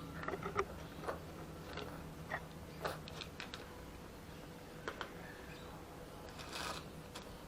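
A cat eating dry food: irregular small crunches and clicks, denser in the first few seconds, then sparse.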